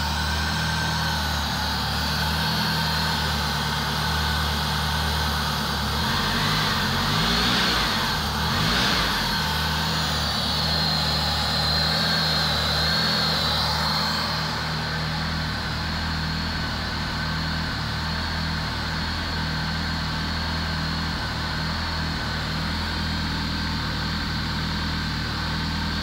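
Supercharged Honda K24 inline-four idling at about 1200 rpm on its first start, still cold, with a brief wavering in pitch about seven to nine seconds in.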